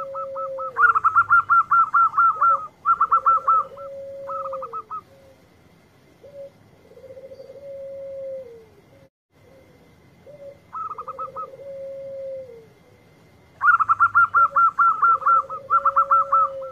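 Zebra doves (perkutut) cooing. Loud, rapid trilled phrases come in clusters near the start and again near the end. Under them, a lower long drawn-out coo repeats every couple of seconds, rising at its start and falling away at its end.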